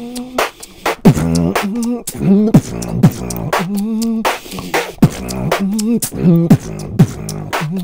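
Vocal beatboxing: sharp percussive mouth snares and clicks in a rhythmic groove, woven with a hummed, pitched bass line that slides down in pitch at the ends of phrases.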